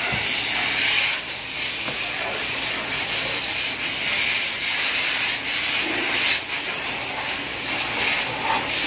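Steady hiss of water being sprayed onto a fire's smouldering debris during firefighting.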